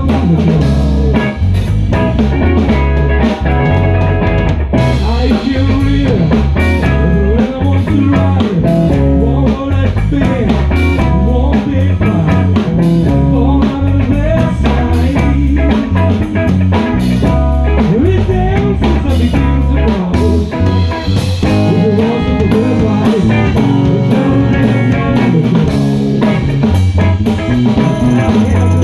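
Live blues band playing electric guitars and drum kit at a steady beat, with the frontman blowing harmonica into a microphone cupped in his hands.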